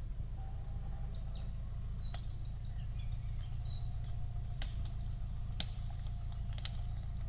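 Opel Frontera A Sport's engine running low and steady as the SUV creeps down a wooded slope, with birds chirping over it and a few sharp snaps scattered through.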